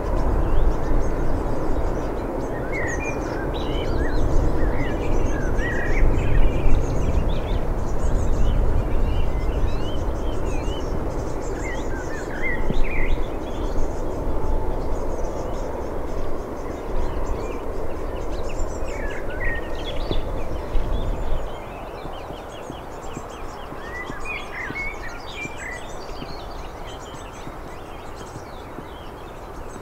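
Low, steady rumble of an Airbus A380's four jet engines as the airliner climbs away after takeoff, dropping off abruptly about two-thirds of the way through. Birds chirp on and off throughout.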